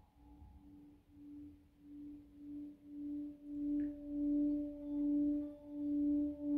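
Tibetan singing bowl sounding one low, steady hum that swells with a regular wah-wah pulse about every two thirds of a second and grows louder, a higher overtone joining about two and a half seconds in, as the bowl is built up around its rim.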